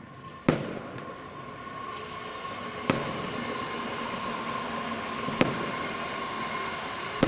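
Fireworks going off: three sharp bangs, about half a second in, near three seconds and a little past five seconds, over a steady background hiss.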